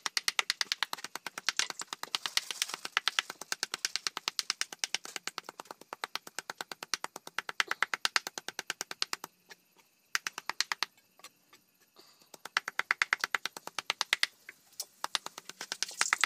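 Knife rapidly chopping soaked dried mushrooms on a chopping board, about eight quick strokes a second, with two short pauses a little past the middle.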